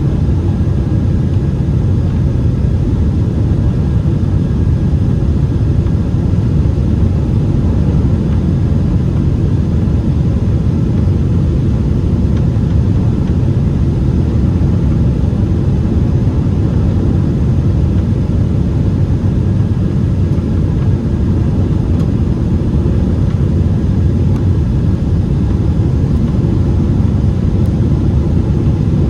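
Steady low rumble of engine and airflow noise inside the cabin of a Boeing 767-400 airliner on approach to land.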